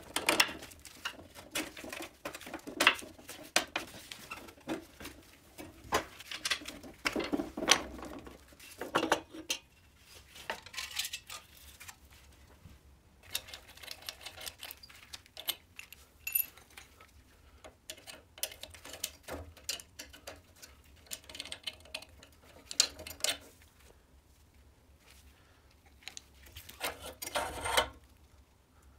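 Irregular metal clinks, knocks and scrapes as steel parts of a Riga 12 moped, its rear shock absorber and front fork pieces, are unbolted and handled by hand. Busiest in the first several seconds, then sparser clusters of clanks.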